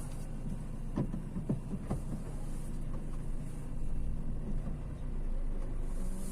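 A vehicle running, a steady low hum with a few light knocks between one and two seconds in.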